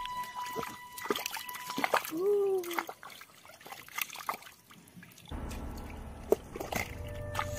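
Muddy ditch water sloshing and dripping as hands scoop and grope through it, with scattered small splashes and drips. A thin steady tone sounds for the first two seconds, a short gliding tone comes about two seconds in, and a low steady hum joins after about five seconds.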